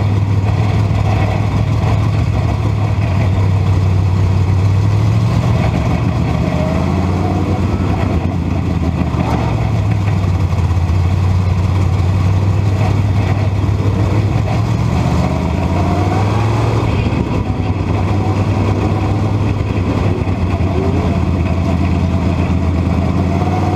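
Dirt modified race car's engine heard from inside the cockpit during a race, running loud and steady, its pitch dipping and rising a little now and then.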